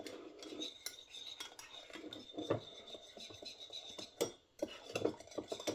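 A spoon clinking and scraping against a bowl while stirring a marinade, with a few sharper knocks about two and a half, four and five seconds in.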